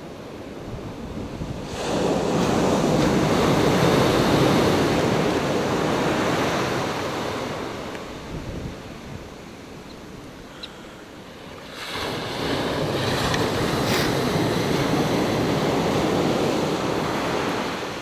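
Ocean surf breaking and washing in two long swells, about two seconds in and again about twelve seconds in, with wind on the microphone.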